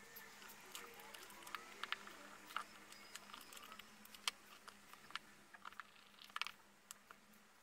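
Faint, irregular small clicks and taps of phone parts and small repair tools being handled during a phone teardown, with a sharper click just at the start and a cluster of clicks about six seconds in.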